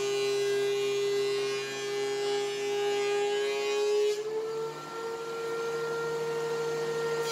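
DeWalt benchtop thickness planer running, its cutterhead planing an oak board with a steady high whine and a hiss of cutting. About four seconds in, the board clears the cutterhead, the cutting hiss drops away and the motor's whine steps slightly higher as it runs unloaded.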